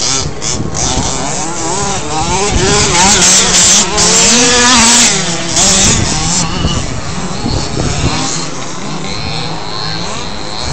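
Radio-controlled off-road race cars running laps, their small motors revving up and down in overlapping rising and falling whines.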